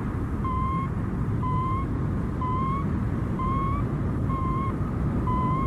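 Electronic signal beeps from a satellite in orbit, an animated sound effect: six short beeps about a second apart, each lifting slightly in pitch at its end, over a steady low rumble.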